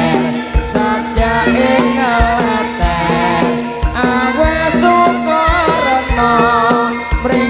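Jaranan sentherewe band playing live: low drum beats about twice a second and cymbal strokes under a wavering, vibrato-laden melody line.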